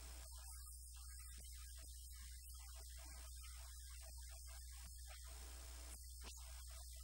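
Steady low electrical mains hum, with faint broken hiss and crackle above it.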